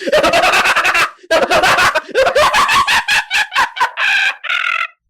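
An evil laugh sound effect: a rapid, high-pitched cackle in quick bursts. It pauses briefly about a second in, then slows and ends on two drawn-out high notes.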